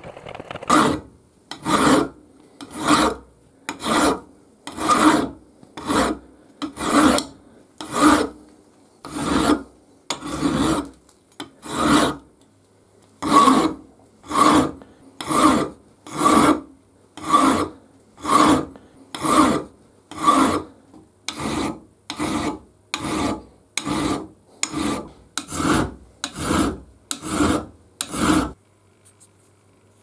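Hand file (a multifile) cutting the rounded outer edge of an aluminium block in slow, even push strokes, about one a second. The strokes stop shortly before the end.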